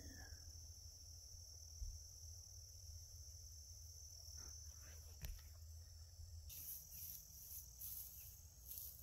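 Faint chorus of evening insects: a steady high trill, joined about two-thirds of the way in by a pulsing chirping, over a faint low rumble.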